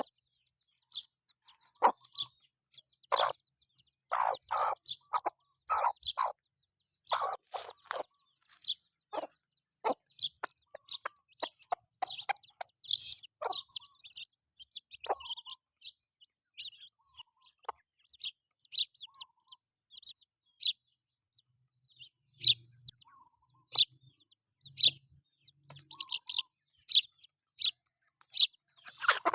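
Chickens clucking and chirping as they forage, with a quick run of short clucks in the first several seconds and then mostly high, short chirps.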